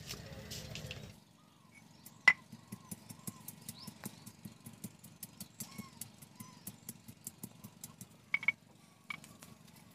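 Stone pestle knocking on a flat stone grinding slab as garlic cloves and dried red chillies are crushed: a steady run of light knocks about three a second, with one sharper knock about two seconds in and a quick double knock near the end. A steady low rumble stops about a second in.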